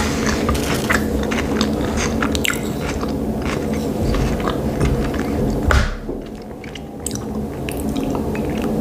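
Close-miked chewing of a mouthful of sushi roll: soft wet smacks and small clicks of rice and nori being chewed with the mouth closed, easing off for a moment about six seconds in.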